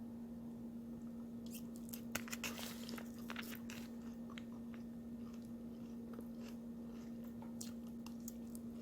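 A person chewing a mouthful of crunchy salad of lettuce, cucumber and kimchi, close to the microphone: sharp crunches and clicks, most of them in the first half. A steady low hum runs underneath.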